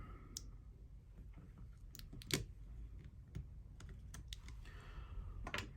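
Faint, scattered small clicks and taps of a tool and parts being handled on an opened smartphone, the loudest about two and a half seconds in and a few more close together near the end.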